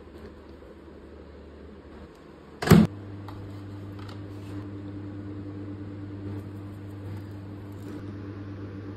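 A sharp clunk about three seconds in, followed by a steady electrical hum, like an appliance motor running.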